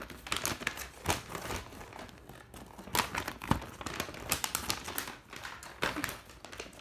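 Paper and plastic packaging from a trading-card box crinkling and rustling as it is handled and a folded paper sheet is opened out, in irregular crackles.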